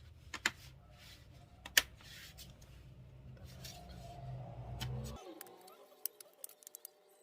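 Plastic bottom cover of an MSI Cyborg 15 laptop being pressed back on, its clips snapping into place: a few sharp clicks in the first two seconds, then lighter ticks and taps near the end.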